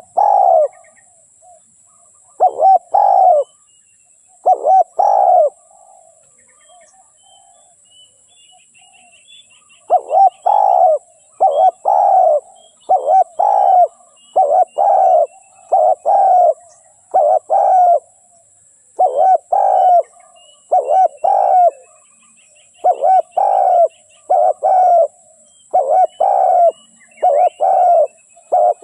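Spotted dove (tekukur) cooing: a string of loud, low, repeated coos in groups of two or three. After the first few there is a gap of about six seconds, then the coos come close together. Small birds chirp faintly in the background.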